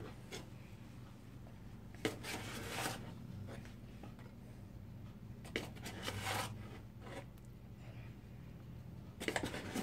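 Faint scraping and rustling of flour being spooned into a plastic measuring cup, in a few short bursts over a low steady hum.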